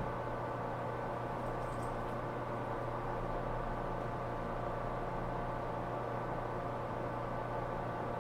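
Stationary JR Kyushu 415 series 1500 EMU motor car with its on-board electrical equipment running: a steady hum made of several constant tones, with a couple of faint light ticks about a second and a half in.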